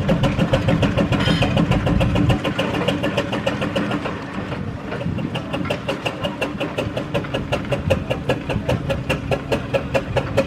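1929 Burrell steam road roller on the move, its exhaust beating fast and evenly. A heavier low rumble underneath drops away about two seconds in.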